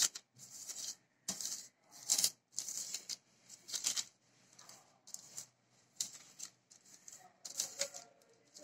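Silicone pastry brush spreading butter over butter paper in a baking tray: a run of short brushing strokes on the paper, about two a second.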